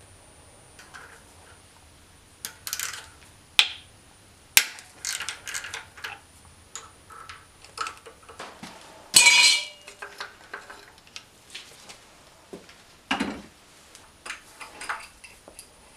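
Hand tools clinking and clicking on the timing-chain cam sprocket bolts of a BMW M54B30 engine, a ratchet and then a wrench knocking against metal in irregular clinks. About nine seconds in comes a louder metallic rattle lasting about half a second.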